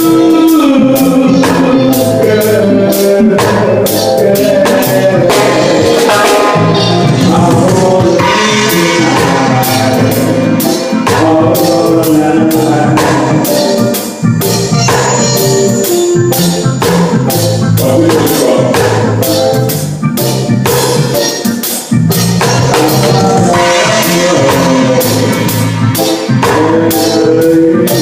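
Live band playing a song, with a drum kit keeping a steady beat and a voice singing the melody over it.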